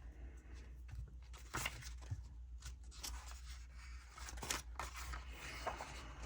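Faint rustling of paper sticker sheets and a sticker being peeled and pressed down, with a few light taps.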